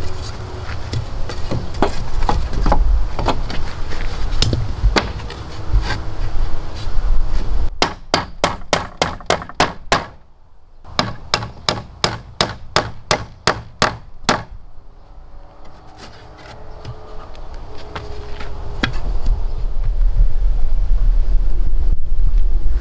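Hammer driving nails into wood: scattered knocks, then two fast, even runs of strikes, about four a second, with a short pause between them. Low wind noise on the microphone builds near the end.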